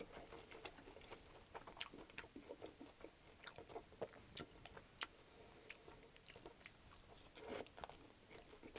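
Close-miked chewing of a bite of Subway sub sandwich with crusty, cheese-topped bread: irregular faint crunches and mouth clicks.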